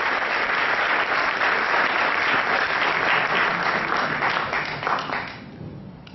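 Audience applauding, a dense steady clapping that dies away about five seconds in.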